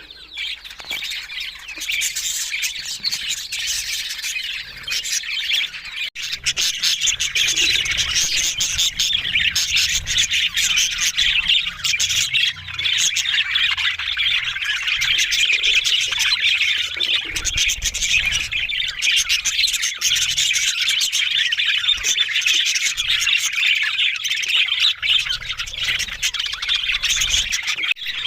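Budgerigars chattering and warbling without a break, a dense mix of rapid high chirps from several birds.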